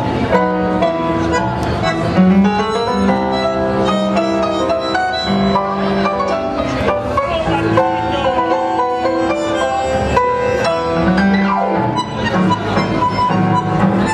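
Instrumental tango music played on violins, piano and double bass, with sliding string melody lines over a steady bass.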